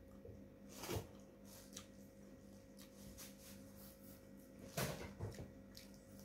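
Faint eating sounds as a piece of fried tofu is handled and bitten by hand, with small clicks throughout and two louder short sounds, about a second in and around five seconds in. A steady low hum runs underneath.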